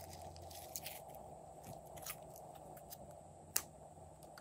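Pink glitter slime being stretched and handled by hand, giving faint, scattered sticky clicks and pops, with one sharper click about three and a half seconds in.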